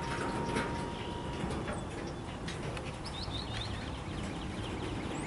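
A small bird chirping a quick run of short notes about three seconds in, over a steady low rumble of background noise.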